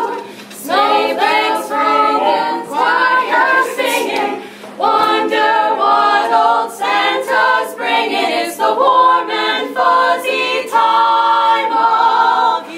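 A small group of teenage girls singing a cappella in harmony, in several phrases with brief pauses between them.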